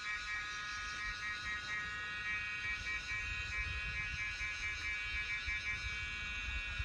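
A chorus of crickets chirping: several steady high trills layered together, some pulsing in rapid chirps, over a faint low rumble.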